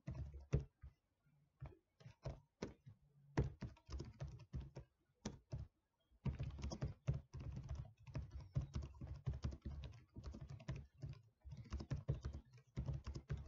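Typing on a computer keyboard: scattered keystrokes at first, then a short pause about six seconds in, followed by quicker, steadier typing.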